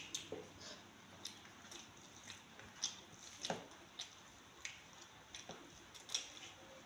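Eating rice and curry by hand from a steel plate: fingers squishing and mixing the rice, with faint, irregular light clicks against the plate and chewing.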